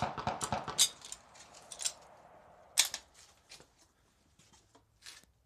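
Metallic clicks and rattles from a bolt-action rifle being loaded and its bolt worked, a quick run of clicks over the first two seconds and one sharp click about three seconds in, then a few faint knocks as the rifle is settled to aim.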